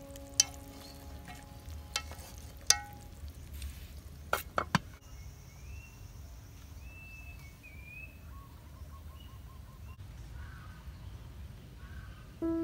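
Chopsticks knocking and tapping against an aluminium cooking pot holding a boiled chicken, several sharp clicks in the first few seconds. After about five seconds birds call with short chirps and a quick trill.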